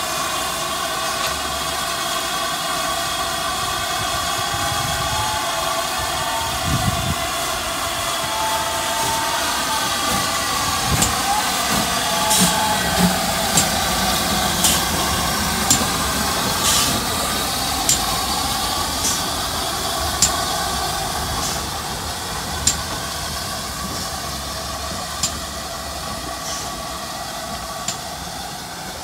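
GWR 2800-class 2-8-0 steam locomotive standing at a platform with a steady hiss of steam. From about eleven seconds in, sharp ticks come roughly once a second.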